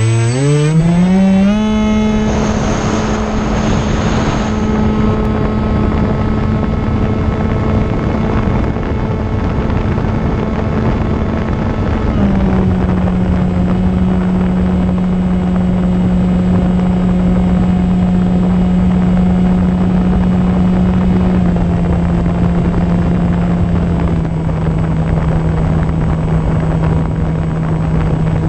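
E-flite Opterra flying wing's electric motor and pusher propeller, heard from the onboard camera. It spools up quickly to a steady drone, then settles to a slightly lower pitch twice as the throttle is eased back, about 12 and 21 seconds in. Steady wind noise from the airflow over the plane runs underneath.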